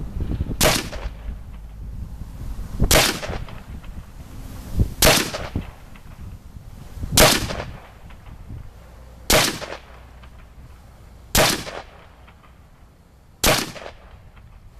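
DPMS AR-15 semi-automatic rifle in .223 firing seven single shots, evenly paced about one every two seconds.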